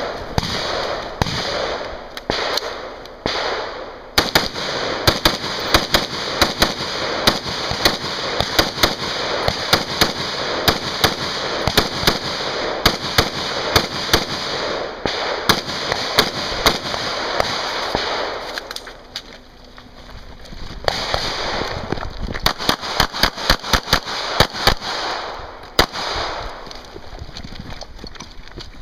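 Gunshots in quick strings from a 3-gun stage, rifle fire among them, a shot every fraction of a second at times, with a lull of a couple of seconds about two-thirds of the way through. A steady hiss runs underneath.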